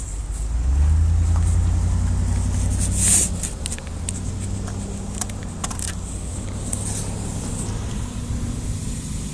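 A motor vehicle engine running with a steady low hum that swells louder about a second in and eases back after about three seconds, with a few light clicks.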